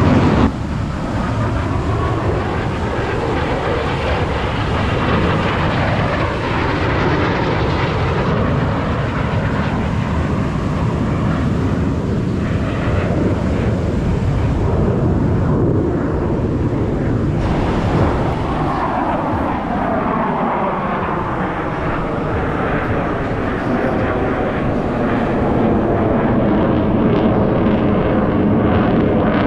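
Jet noise from Blue Angels F/A-18 Super Hornets flying their display, running continuously and loudly. About two-thirds of the way through, the engine pitch slides down as jets pass by.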